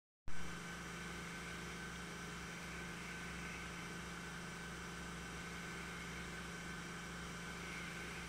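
Steady hiss and low hum of a 16mm film soundtrack with no programme sound yet, switching on with a short pop about a quarter second in.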